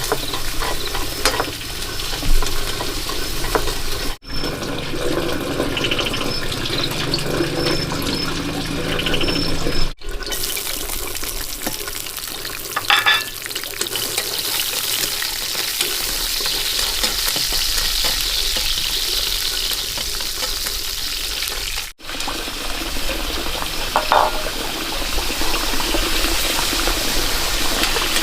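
Steady hissing of food frying, mixed with running water, cut off abruptly three times where the shot changes, with a few brief clinks.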